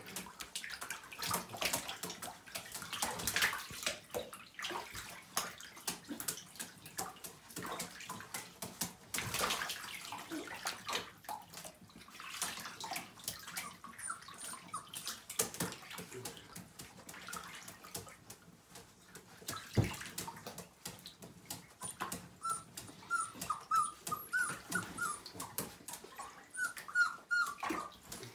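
Five-week-old Siberian husky puppies whimpering in short high whines, repeatedly in the last several seconds, over splashing and sloshing in a bathtub's shallow water as they move about and are handled.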